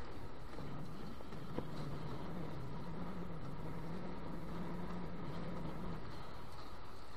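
Steady rush of water and wind as a Nacra F18 sailing catamaran's hull cuts through the water. A low steady hum runs from about half a second in to about six seconds, and there is a single click just before two seconds.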